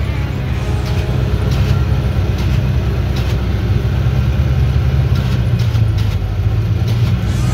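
Polaris Ranger UTV engine running steadily as it drives over snow, a deep continuous drone.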